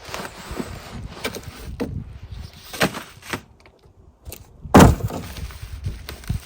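A cardboard box being torn open and handled: a rustling, tearing stretch with sharp knocks, then a quieter moment and one loud thump a little before five seconds in.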